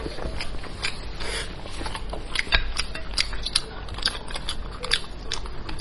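Gloved hands pulling apart a cooked sheep's head: a run of sharp crackles and clicks as thin plastic gloves crinkle and meat and small bones come apart.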